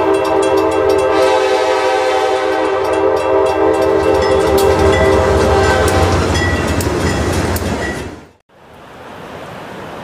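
Diesel locomotive air horn blowing one long multi-note chord as the locomotive comes through a grade crossing, with the crossing bell dinging. The horn stops about six seconds in, leaving the rumble and wheel clatter of the passing locomotive, which cuts off suddenly near the end to a steady hiss.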